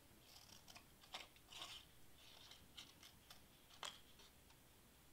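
Scissors snipping through cardstock: a series of faint, short, irregular cuts.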